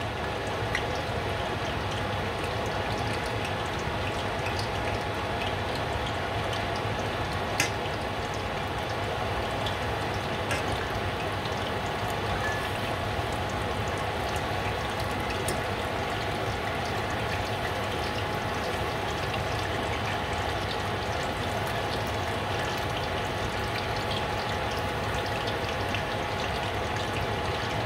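Battered shrimp tempura frying in shallow hot oil in a small saucepan: a steady sizzle with scattered small pops and one sharper tick about a third of the way in. The oil is too shallow for proper deep-frying.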